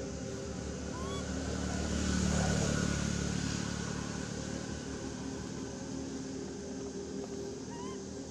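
A motor vehicle's engine humming steadily, swelling about two seconds in and easing off again, as a vehicle passing at a distance does.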